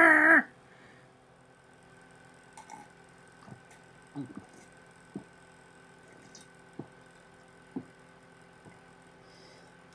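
Quiet room tone with a steady faint hum, broken by a handful of small, scattered clicks and taps, like light plastic handling noises. A voice trails off right at the start.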